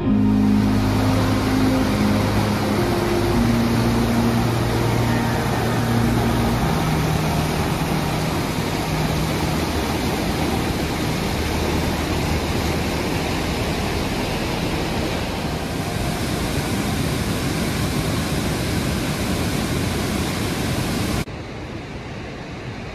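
A large waterfall's steady, loud rush of falling water. It drops abruptly to a much quieter background about a second and a half before the end.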